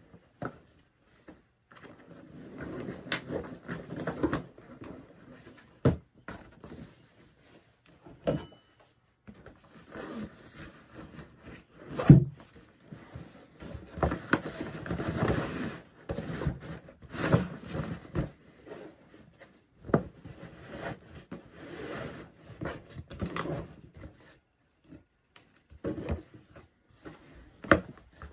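Rustling and scraping of a Bradley Mountain Wilder canvas backpack and clothing as items are stuffed into it by hand. Sharp knocks come now and then, the loudest about twelve seconds in, as a cardboard shoebox and other things are handled and pushed into the bag.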